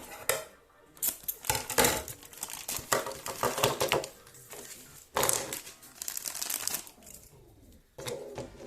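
Plastic wrapping crinkling and rustling in irregular bursts as a Happy Meal toy is unwrapped by hand.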